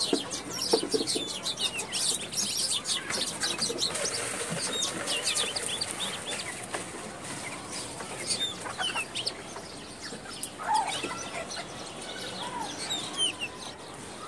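Birds calling in the background: many short, high chirps throughout, with a few lower calls.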